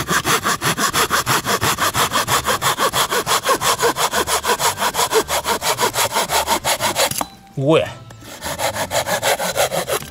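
Hand pruning saw cutting through a dead log in fast back-and-forth rasping strokes. The sawing stops for a moment about seven seconds in, then goes on more softly.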